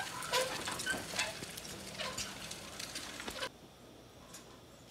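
Hand-pushed precision seeder rolling along a soil bed, with irregular light clicks and rattles from its wheels and seed mechanism. The sound cuts off abruptly about three and a half seconds in.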